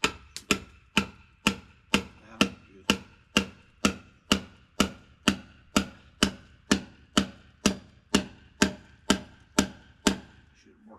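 Hammer blows driving a track anchor into a pre-drilled hole, about two evenly spaced strikes a second, each with a short metallic ring. The anchor goes in hard because the holes are drilled too tight.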